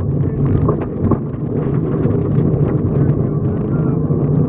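Subaru rally car heard from inside the cabin, its engine running on a gravel stage while gravel rattles and pings steadily against the underbody and wheel arches.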